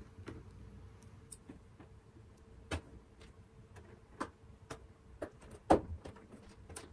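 Pliers clicking and a cardboard model-horse box being handled while a model is worked free from its packaging: scattered sharp clicks and knocks at irregular spacing, the loudest near the end, over a faint steady hum.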